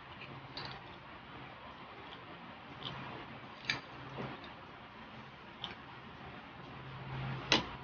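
Plastic spoon clicking and scraping against a small glass jar while scooping out dried fish in oil: a handful of light, separate clicks, the sharpest one near the end, over a faint steady hum.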